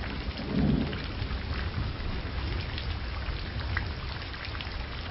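Steady rain with a low rumble of thunder under it, and a short louder swell about half a second in.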